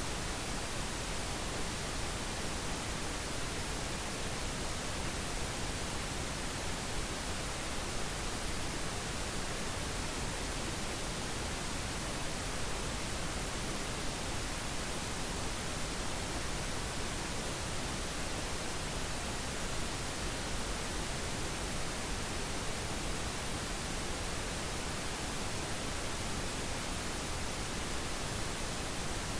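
Steady pink noise: an even, unchanging hiss spread across the whole range, with no events or changes.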